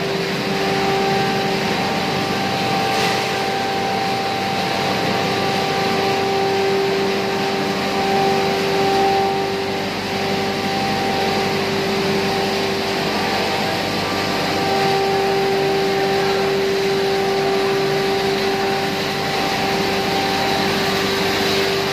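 ACM (air classifier mill) pulverizer plant running steadily while grinding maize into powder: a constant machine drone with a steady hum over a rushing noise.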